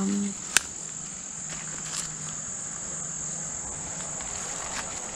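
Steady, high-pitched chirring of a summer insect chorus, with one sharp click about half a second in.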